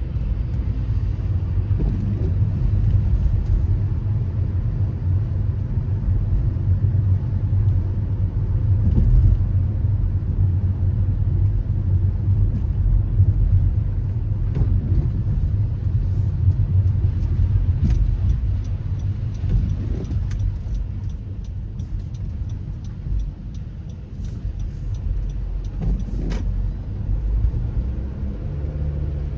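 A car driving, giving a steady low road and engine rumble, with a few faint clicks in the second half.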